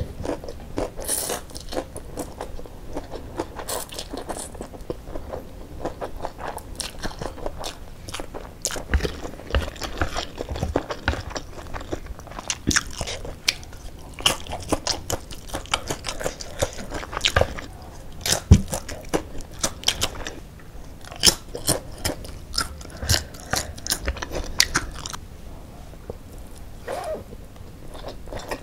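Close-up eating sounds: a person chewing and slurping spicy fried noodles, with many sharp mouth clicks throughout.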